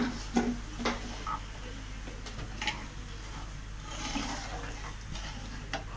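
Metal ladle stirring milk in a steel pot: the liquid sloshes and swirls, and the ladle knocks against the pot a few times in the first second or so.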